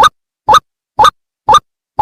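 White-breasted waterhen (ruak-ruak) calls from a bird-lure recording: short calls repeated at an even pace of about two a second, with dead silence between them.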